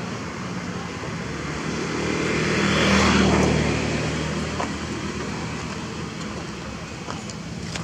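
A road vehicle driving past. Its tyre and engine noise swells to a peak about three seconds in, then fades away.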